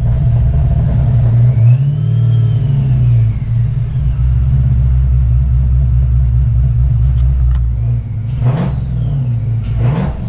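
Whipple 2.9 L supercharged V8 running, revved once about two seconds in: the engine note and the supercharger whine rise and fall together, then it settles back to idle. Two brief sharp sounds come near the end.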